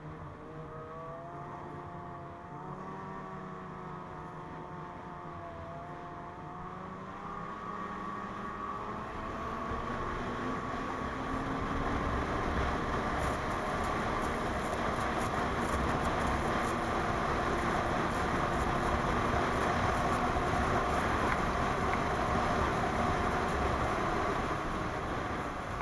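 Two-stroke 600 engine of a 2017 Ski-Doo MXZ 600 Carb Sport snowmobile under way on the trail. Its pitch wavers up and down for the first several seconds, then it gets louder from about eight seconds in and holds at speed with a rushing noise, easing a little near the end.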